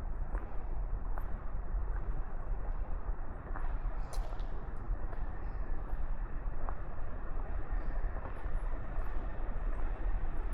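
Steady low rumble of distant city traffic, with a few faint light ticks scattered through it.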